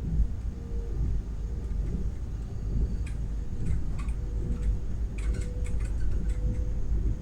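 A vehicle rumbling steadily on the move, with light irregular ticks and knocks over it, the strange knock the owner is hearing.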